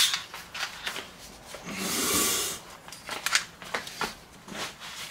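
Airsoft pistols and magwells being handled on a cluttered workbench: scattered clicks and knocks of gear being picked up and set down, with a rustling scrape lasting about a second, roughly two seconds in.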